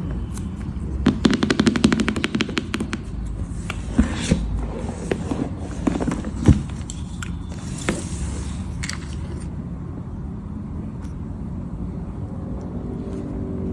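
Packaging of a laptop box being handled and opened: a quick run of rapid crackling clicks about a second in, then scattered taps and scrapes, settling to quieter handling over a steady low rumble in the second half.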